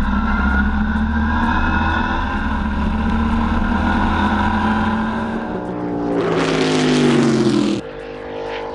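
Viking T6 Special racing lawnmower's V8 engine running hard at speed. About two-thirds of the way through its note falls, under a rush of wind noise. It then cuts abruptly to a quieter, steadier engine note.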